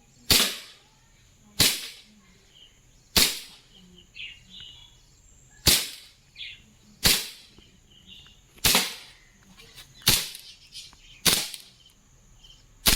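Swiss Arms P92 CO2 blowback BB pistol firing single shots, nine sharp cracks at one every second or two.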